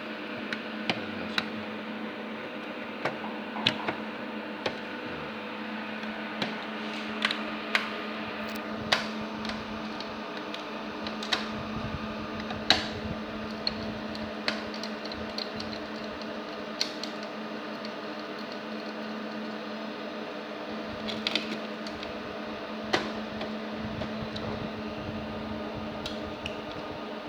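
Irregular sharp clicks and taps, about twenty spread unevenly, from server hardware being handled during a motherboard swap. Under them runs a steady electrical hum.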